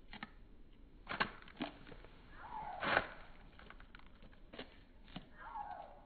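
Chickens pecking at and crunching frosted mini wheats from a paper cup: scattered sharp pecks and crunches, with a short falling cluck about two and a half seconds in and another near the end.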